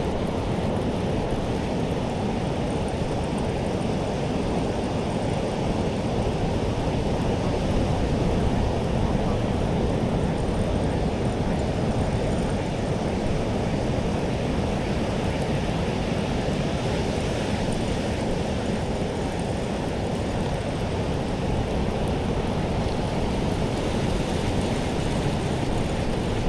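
Steady rush of breaking surf and wind, heaviest in the low end, with no distinct events.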